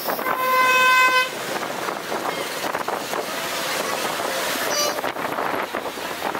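A vehicle horn honks for about a second near the start, then gives a second, shorter toot near the end, over the steady noise of passing street traffic.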